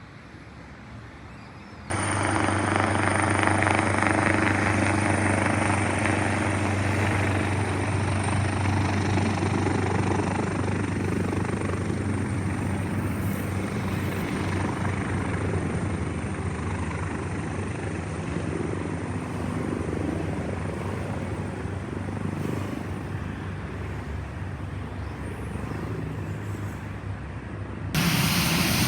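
Aircraft engines running loud and steady, with a low, even hum under the noise, starting abruptly about two seconds in and slowly easing off.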